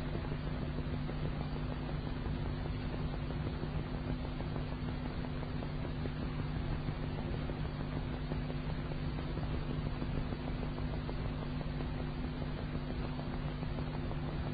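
Steady hiss with a low, even hum and no voice: the background noise of an old recording.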